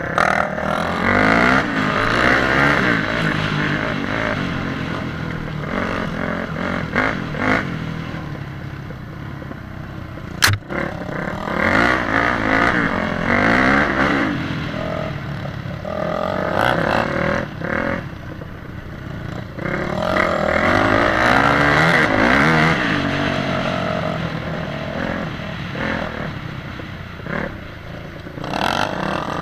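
Motorcycle engine revving up and down repeatedly as it is ridden, with one sharp click about ten seconds in.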